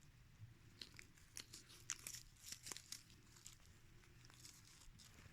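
Near silence with faint, scattered short crackles and clicks.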